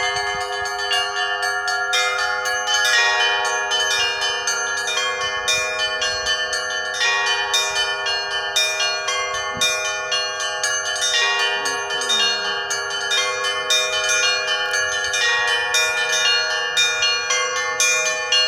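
Russian Orthodox chapel bells rung by hand by a bell ringer. Several bells of different pitches are struck in a quick, continuous pattern, with the lower bells ringing on steadily under the fast higher strokes.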